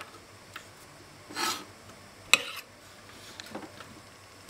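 Knife cutting potatoes on a cutting board: a short scraping rasp about one and a half seconds in, a sharp knock of the blade on the board a little later, and faint taps between.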